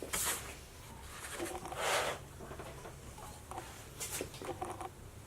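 Packaging rustling and crinkling in a few short bursts as taped, wrapped cylinder heads are handled.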